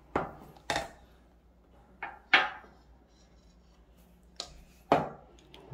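Kitchen things being handled and set down: about six scattered knocks and clatters, the sharpest a little over two seconds in.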